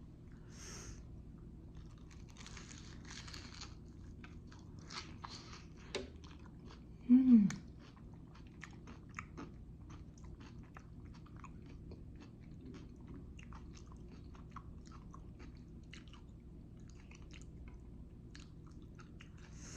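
Close-miked biting and chewing of a still-hot jalapeño popper: soft crunches and wet mouth clicks. About seven seconds in comes a short, louder vocal sound that falls in pitch.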